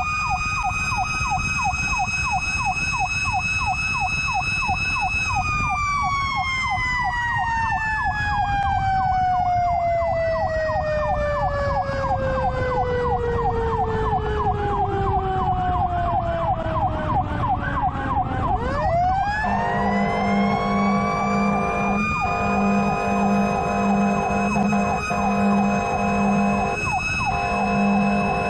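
Fire truck responding with its sirens: a mechanical siren holds a steady high wail, winds slowly down in pitch for about thirteen seconds, then is spun sharply back up about two-thirds in. Until then an electronic yelp siren warbles a few times a second under it. From about two-thirds in, air horn blasts sound in short repeated pulses, about two a second, over engine and road rumble.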